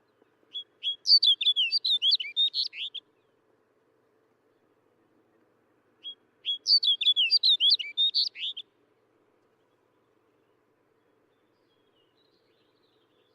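Snow bunting singing: two short, warbled song phrases of quick high notes, each about two and a half seconds long, the first starting about half a second in and the second about six seconds in.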